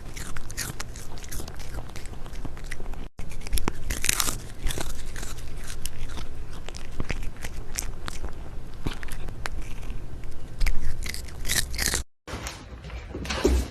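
An animal biting and chewing crunchy food: a quick, irregular run of crisp crunches, broken by two brief silences, about three seconds in and near the end.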